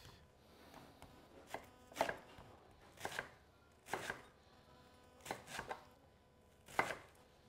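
Chef's knife chopping a cabbage on a wooden cutting board: a slow, uneven series of sharp cuts, roughly one a second, some in quick pairs.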